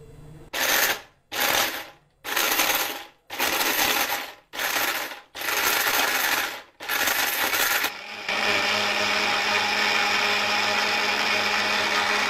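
Orpat 1200-watt mixer grinder pulsed on and off in about seven short bursts while chopping whole dried turmeric in its stainless steel jar, then running continuously for the last four seconds.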